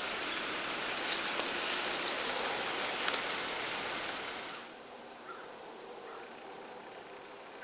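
Steady outdoor background hiss that drops to a quieter hiss about four and a half seconds in.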